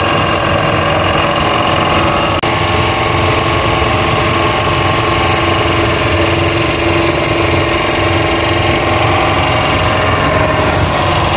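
Engine of a traditional wooden dhow tour boat running steadily at an even pitch.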